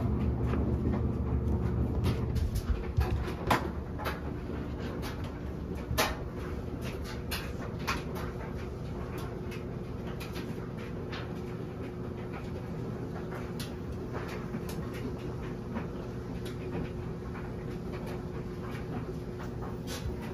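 Washing machine running, its motor or pump giving a steady hum over rhythmic swishing of water and clothes in the drum, with a few knocks in the first six seconds. The low rumble is heaviest for the first three seconds, then settles.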